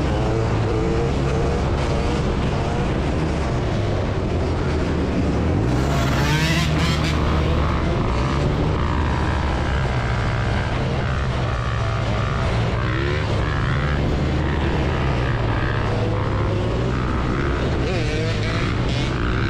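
Several off-road motorcycle engines running together, revved up sharply a few times (about six seconds in, again around thirteen seconds, and near the end).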